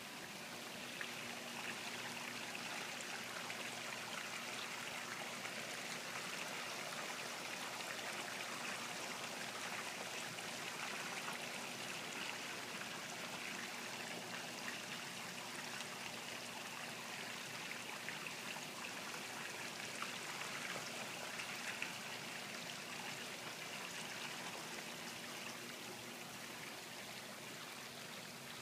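Koi pond water running and trickling steadily. It gets a little louder about a second in and eases off near the end.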